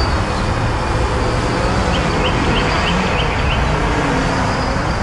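Steady rushing wind buffeting the microphone, heaviest in the low end. About two seconds in, six short high chirps sound in quick, even succession.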